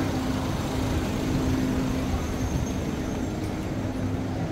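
Fiat Ducato van's engine idling, a steady low hum that fades out about three and a half seconds in.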